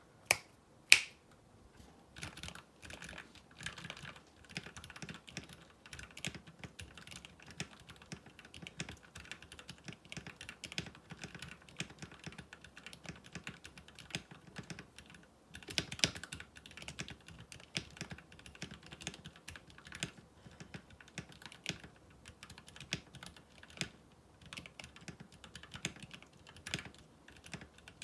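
Typing on a GH60 mechanical keyboard with Gateron Ink Yellow linear switches, tape-modded and tray-mounted with lubed stabilizers, in a fast, steady stream of keystrokes. Two sharp clicks come in the first second, about half a second apart, before the typing starts, and a louder burst of keystrokes comes near the middle.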